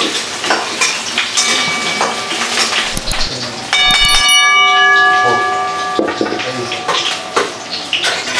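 Metal spatula scraping and clinking against a steel wok as potatoes fry. About four seconds in, a subscribe-button sound effect comes in over it: a bright bell chime that rings for about two seconds, the loudest sound here.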